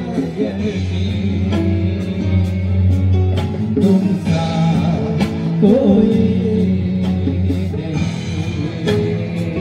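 Christian worship song: singing over instrumental backing, with a steady bass and regular percussion strikes.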